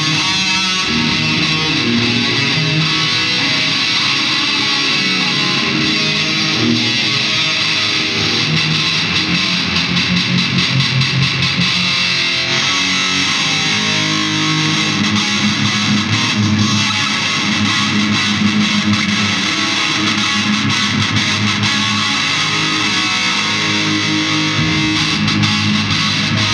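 Loud distorted electric guitar played through an effects unit and amplifier, running through riffs during a sound check.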